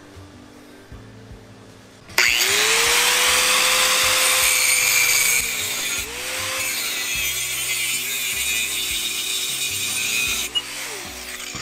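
Angle grinder with a thin cut-off disc starting about two seconds in with a rising whine and running free. From about six seconds it cuts through a steel pipe, its pitch lower and wavering under load, and it winds down near the end.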